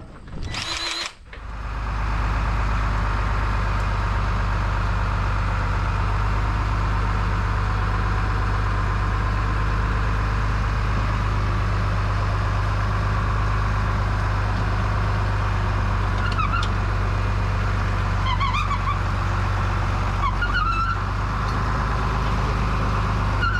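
A short whir about half a second in, then a tractor engine running steadily, with a few short squeaks in the last seconds.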